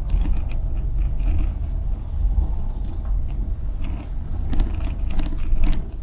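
Car driving, heard from inside the cabin: a steady low road and engine rumble with scattered light clicks, the loudest of them near the end.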